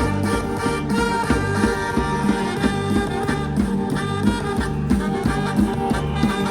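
A live brass band plays an upbeat tune over a steady drumbeat, as Taiwanese funeral-procession bands do.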